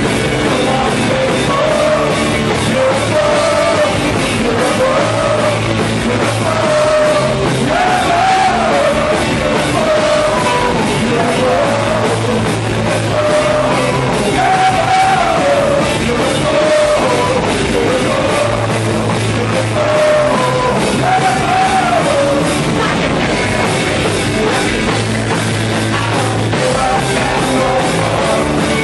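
Punk rock band playing live, loud and steady, with a singer's melody over the band.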